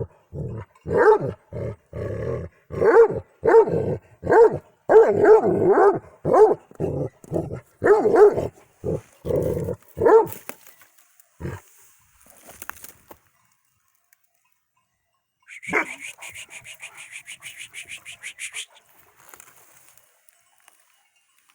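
Shepherd dog barking over and over, roughly two deep barks a second, stopping after about ten seconds. Later a sudden, high, rapidly fluttering call lasts about three seconds.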